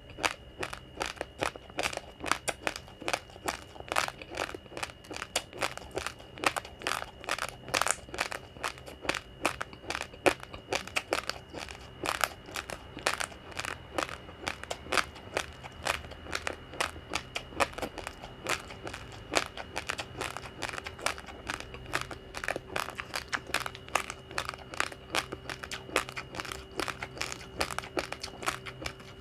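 Uncooked rice grains crunching as someone chews them: a rapid, uneven run of sharp crunches, several a second, over a faint steady hum.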